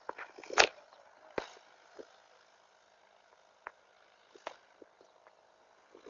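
A few scattered short knocks and clicks with quiet between them, the loudest just over half a second in.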